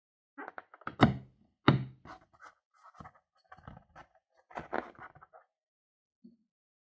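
Hands handling a filled rubber balloon over a glass dish: scattered short rubbing and squeezing noises, with two sharp knocks, one about a second in and one just under two seconds in, as the loudest sounds.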